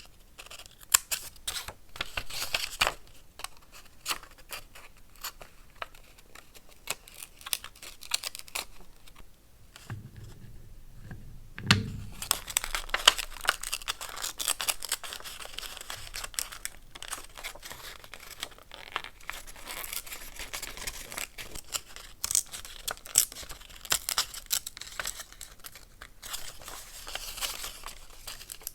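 Paper being handled, torn and crinkled: a run of crisp rustles, small tears and clicks, sparse in the first half and busier from about the middle on.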